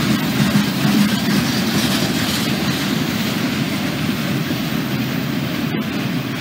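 Freight train passing close by: boxcars and centerbeam lumber flatcars rolling along, a steady noise of steel wheels on the rails.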